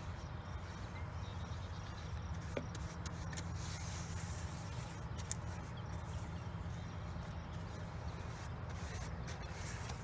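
Paintbrush rubbing a milky liquid wood hardener into soft, rotted window-sill wood: faint scattered brush strokes over a steady low background rumble.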